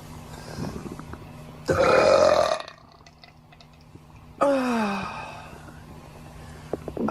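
A person burping loudly twice: a long, rough burp about two seconds in, then a second burp that falls in pitch a couple of seconds later.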